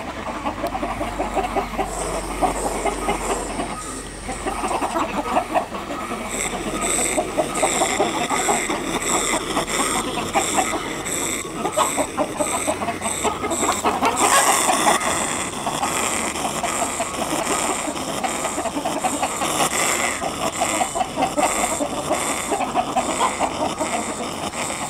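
A flock of hens and roosters clucking continuously at close range, with a louder outburst about halfway through.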